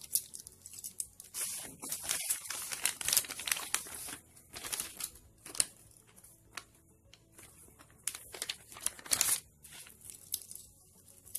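Thin plastic wrapping crinkling and rustling in irregular bursts as it is handled, busiest in the first few seconds and again about eight to nine seconds in.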